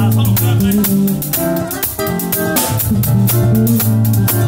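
Live band playing an instrumental intro: an acoustic-electric guitar strumming chords over a Fender Precision electric bass line, with a drum kit keeping a steady beat of cymbal and drum strokes.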